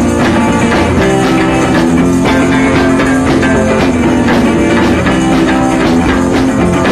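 Background rock music with strummed guitar and drums and a steady beat, cutting off abruptly at the end.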